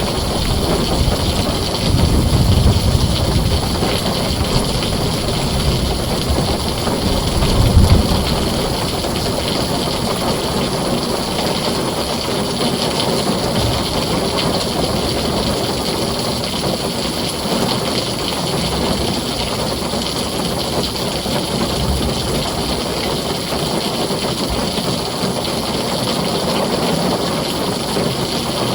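Heavy rain drumming steadily on a tin roof, with low thunder rumbling about two seconds in and again, louder, near eight seconds.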